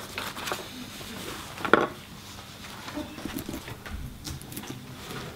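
Handling sounds of a fish dissection: one sharp knock of a tool about two seconds in, then faint ticks as a scalpel cuts into the fish's skull.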